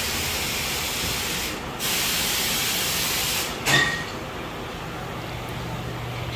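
Compressed air hissing from a shop air line in two long rushes, then one short sharp blast a little past halfway.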